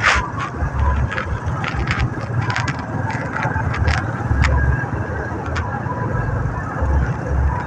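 Road and wind noise from riding a Honda scooter slowly through dense traffic: a steady rumble with uneven wind buffeting on the microphone and scattered short clicks and ticks.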